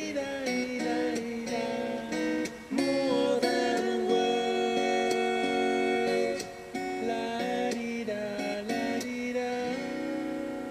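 Recorded acoustic guitar instrumental: strummed chords ringing, punctuated by sharp percussive strum hits, with short breaks in the strumming about 2.5 and 6.5 seconds in.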